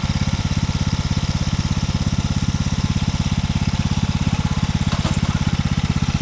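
Riding lawn mower's engine running steadily at a low, even idle, with a regular chugging pulse that does not change.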